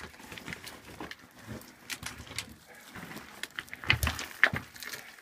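A person crawling through a narrow rock tunnel: irregular scuffs, scrapes and knocks of hands, knees and clothing on rock and loose gravel, with the loudest knocks a little before four seconds in and again about half a second later.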